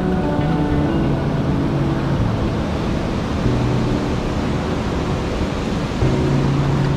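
Shallow mountain stream rushing and splashing over rocks, a steady loud rush of water.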